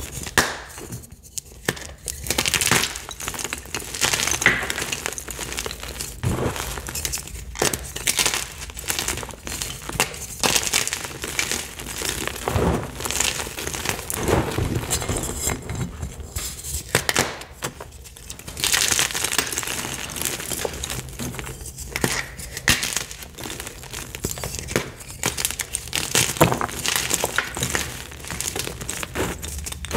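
Bare hands crushing and crumbling Picsil gym chalk blocks (magnesium carbonate) into loose chalk powder: dense, continuous crunching and crackling, with louder crunches every few seconds as pieces break.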